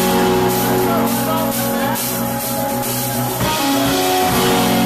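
Rock music with guitar and a drum kit: held chords under steady drum strikes, with the chord changing about three and a half seconds in.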